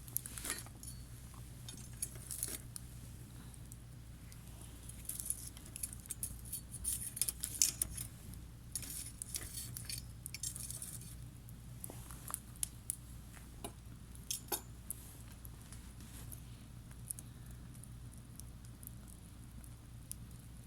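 Wood campfire crackling faintly, with irregular sharp pops and snaps that come in flurries, over a steady low hum.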